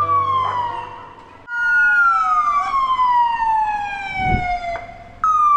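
Emergency vehicle siren sounding repeated falling sweeps: each starts abruptly high and slides steadily down over one to three seconds before restarting. A brief low rumble sounds about four seconds in.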